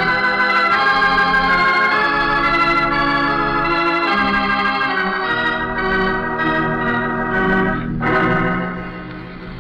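Organ playing a musical bridge between scenes of a radio drama: sustained chords that shift every second or so, dropping in level near the end.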